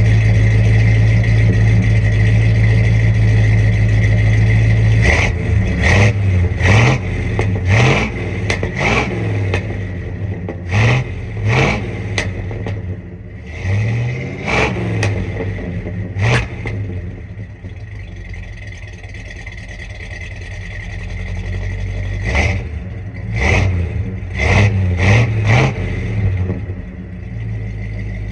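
Ford 460 big-block V8 on its stock exhaust, idling and then revved in several bursts of quick throttle blips, each rev rising and falling fast. It settles to a steady idle between the bursts and near the end.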